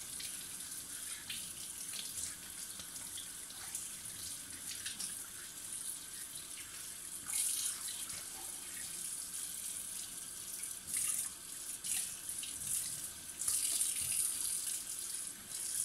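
Kitchen tap running into the sink, its stream splashing over a raw salmon fillet as it is rinsed by hand, with louder splashes now and then as the fish is turned under the water.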